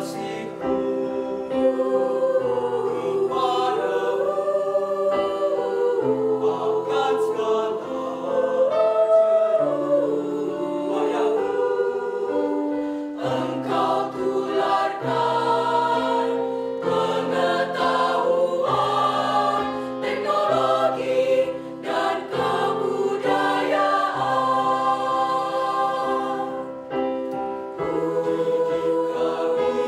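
Mixed high-school choir singing in several parts, with sustained chords over a low bass line that moves in steps and upper voices rising and falling above it.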